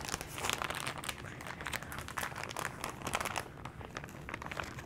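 Plastic bag of shredded cheddar cheese crinkling as it is handled, a rapid crackling that thins out near the end.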